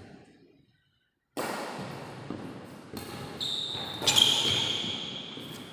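A badminton rally in a large hall: sharp knocks from racket hits and players' feet on the court, the loudest about four seconds in, with a high squeak held through the second half. The sound cuts out for about half a second near the start, then comes back abruptly.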